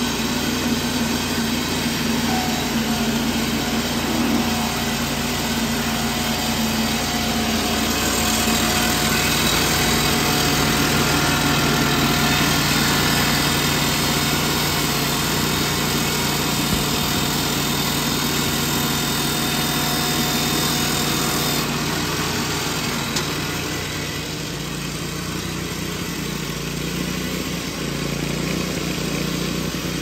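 Cook's board edger running on a test run of its new carbide-tipped saw blades, cutting the bark edges off a slab as it feeds through; a steady machine drone, a little louder through the middle stretch of the cut.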